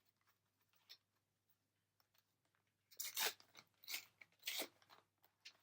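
Quiet, then three short crinkling rustles a little after halfway through, from a foil booster pack wrapper being torn open and handled.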